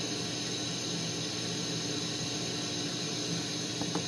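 Propane-oxygen glassworking torch burning with a steady hiss, a faint low hum beneath it.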